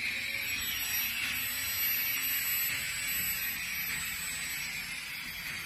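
Strong 90 micromotor handpiece spinning at high speed, a steady high-pitched whine set by the control box's speed dial. Near the end the pitch begins to fall as the speed is turned down.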